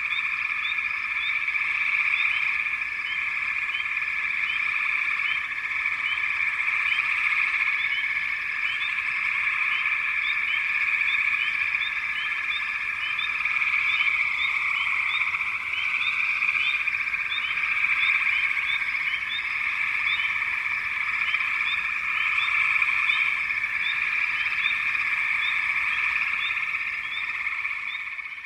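Chorus of many frogs calling at once: a dense, continuous trilling, with short rising chirps scattered over it. It fades out at the very end.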